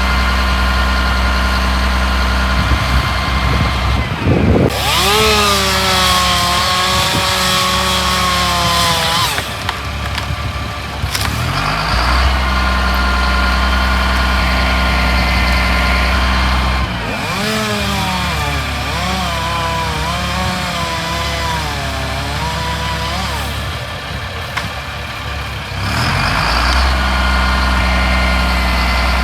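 Tree-removal machinery: a heavy engine runs steadily at idle, broken twice by spells of a higher engine revving up and labouring under load, the first one with a loud rushing hiss.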